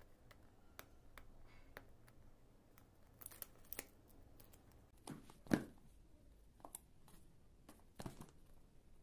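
Hands handling and working open a smartphone's cardboard retail box over plastic packing: faint, scattered rustles, scrapes and taps of cardboard and plastic, the loudest about five and a half seconds in.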